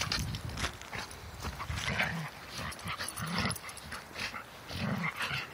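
Two dogs play-wrestling: a few short, low vocal sounds from the dogs over steady scuffling and rustling of bodies and paws in wood chips.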